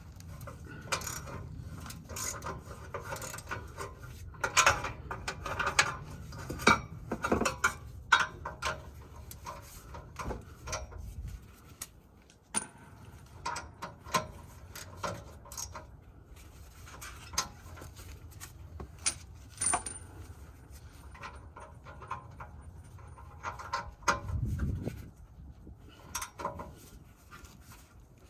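Metal hand tools and exhaust hardware clinking and clattering in irregular sharp knocks, with a low thud near the end.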